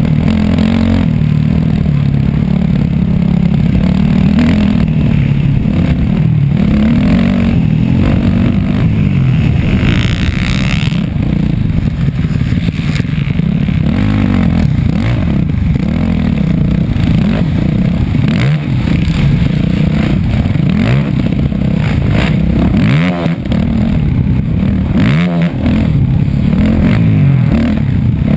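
Off-road dirt bike engine heard close to a camera mounted on the bike, revving up and down again and again as the rider accelerates and backs off through the track's turns, with rattling from the bike.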